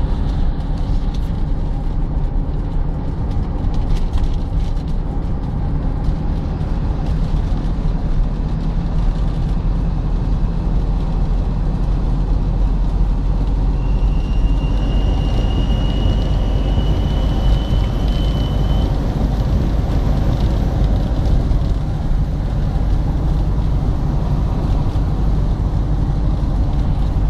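Steady running and road noise of a vehicle being driven. About halfway through, a thin high whistle from the drivetrain rises slightly in pitch for about five seconds, then fades; the owner suspects a failing driveshaft centre support (carrier) bearing.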